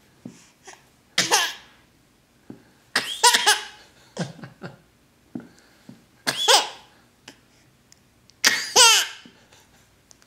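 Baby laughing in about five separate high-pitched bursts, a second or two apart.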